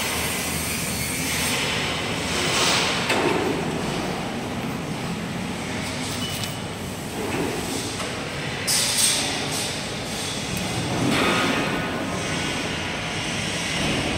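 Steady rumbling, hissing noise of industrial machinery in a factory hall, swelling louder a few times.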